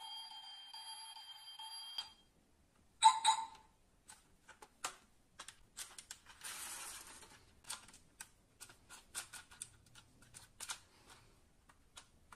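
Small clicks and knocks of a die-cast model SUV being handled, its doors being opened and shut, after a steady electronic tone that stops about two seconds in. One short, loud sound about three seconds in.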